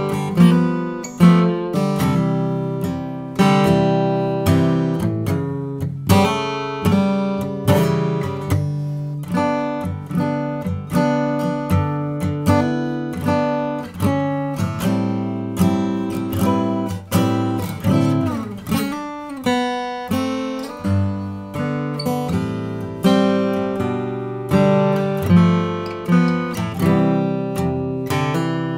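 Gibson J-60 acoustic guitar strummed with a pick, chords ringing in a steady rhythm of about one stroke a second.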